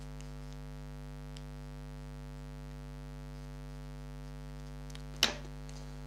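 Steady low electrical mains hum throughout, and one sharp metallic click about five seconds in as a pair of steel scissors is set down on the cloth-covered table.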